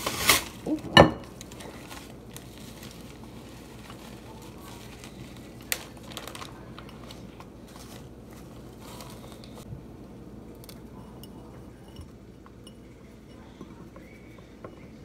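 Kitchen handling sounds of a plastic zip bag crinkling and a plastic spoon scraping and tapping against glassware as brownie crumbs are scooped into a glass. A couple of loud rustles in the first second, one sharp clink about six seconds in, and faint handling noise the rest of the time.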